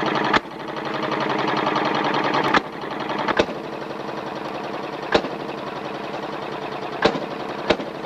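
A small engine running steadily with a fast, even pulse, broken by several sharp clicks.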